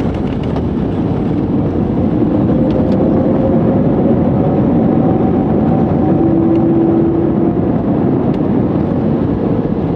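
Cabin noise of an ANA jet airliner rolling out on the runway just after touchdown, spoilers raised: a loud, steady rumble of engines and wheels, with faint engine tones wavering in pitch and a slight swell through the middle.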